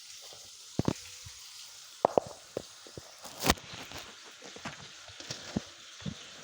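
Chicken drumsticks shallow-frying in a pan, a steady sizzle with scattered sharp pops, the loudest about three and a half seconds in.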